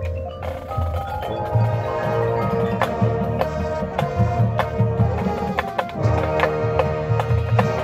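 High school marching band playing: marimba, xylophone and other mallet percussion strike repeated notes over held chords and drums. The full band comes in about half a second in and stays loud.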